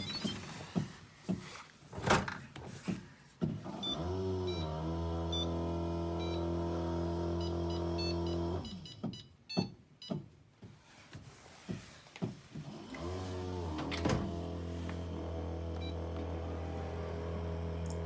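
Fisher & Paykel DishDrawer dishwasher's wash pump motor spinning up with a rising hum about four seconds in, running steadily, and cutting off at about eight and a half seconds. Clicks and knocks from the drawer and control buttons follow, then the pump spins up and runs steadily again from about thirteen seconds in.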